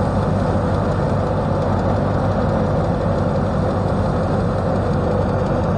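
Tractor-driven wheat thresher running steadily: a constant low engine drone with the machine's even mechanical noise.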